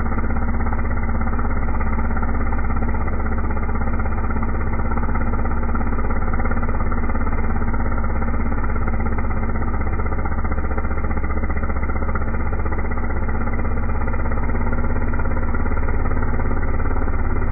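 Stihl chainsaw running at full throttle, held in a chainsaw mill and cutting steadily across the end of a large log to slice off a thin disc (a cookie). The engine note stays even throughout, without revving up or down.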